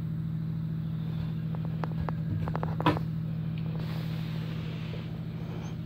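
Steady low machine hum, with a few light clicks and a soft knock about three seconds in.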